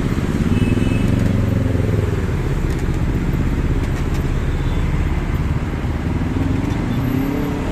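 Dense motor-scooter and motorcycle traffic pulling across a level crossing: a steady din of many small engines revving as they move off, with engine notes rising and falling. A bigger engine, a city bus, rises in pitch near the end.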